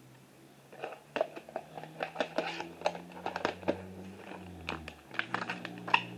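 Handling noise from a VHS cassette and its case: a string of small plastic clicks, taps and rustles, over a faint low steady hum.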